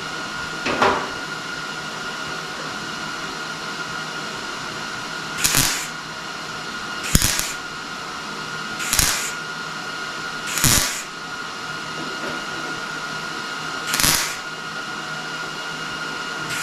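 MIG welder laying short tack welds with .024 wire on thin fender sheet metal. Five brief bursts come a second or few apart, over a steady background hum.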